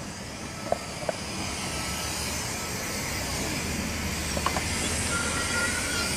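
Caterpillar C13 ACERT diesel of an MCI D4500CL coach running, heard from inside the cabin as a steady low hum with hiss, growing slightly louder after about two seconds. Two sharp clicks about a second in.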